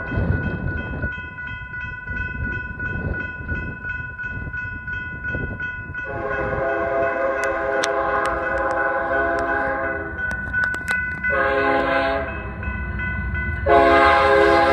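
Air horn of a BNSF GE ES44AC freight locomotive sounds a long blast about six seconds in, then a short one, then a louder long one near the end. This is the end of the grade-crossing horn signal, heard over the rumble of the approaching train. Before the horn, a crossing bell rings steadily.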